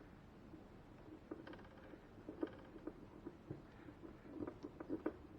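Screws being driven back in by hand: faint, irregular small clicks and scrapes of a screwdriver working the screws.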